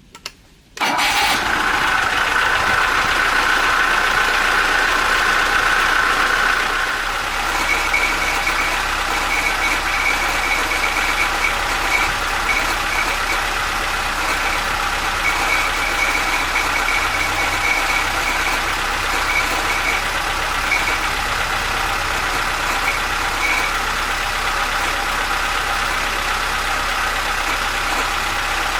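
Homemade air compressor switching on with a click and then running steadily. It carries a steady whine that steps higher about six seconds in and then comes and goes.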